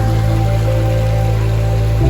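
Background music of slow, held chords, with a chord change at the very end.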